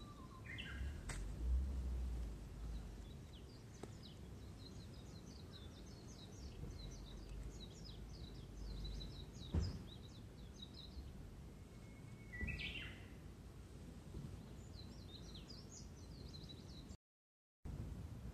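Small birds chirping and twittering in quick runs of short high notes, with a couple of louder sliding calls. A single sharp knock about halfway through, and the sound drops out for a moment near the end.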